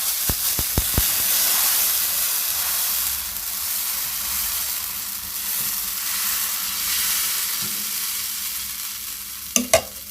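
Dosa batter sizzling on a hot tawa as it is poured and spread, a steady hiss that slowly fades. A few light clicks come in the first second.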